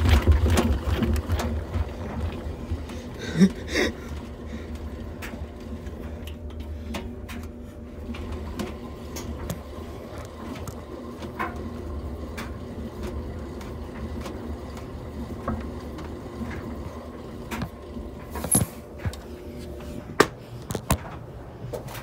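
Hand-spun front-loading washing machine drum coasting down: its loud low hum fades away over the first two seconds, leaving a fainter steady hum with scattered clicks and knocks.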